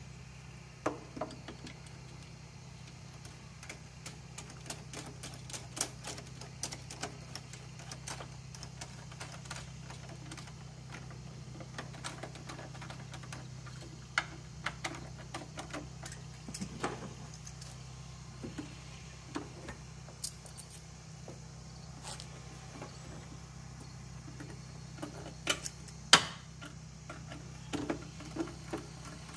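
Scattered clicks and metal clinks of a socket wrench and long extension being worked on a car engine's spark plugs, over a steady low hum. One sharper knock comes near the end.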